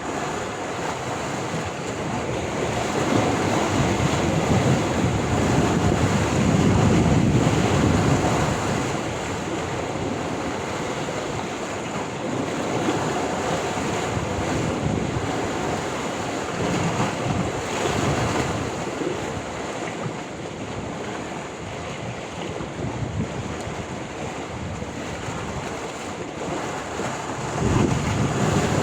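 Sea waves washing and breaking on the shore in a continuous rush, with wind buffeting the microphone. The surf swells louder about four to eight seconds in and again near the end.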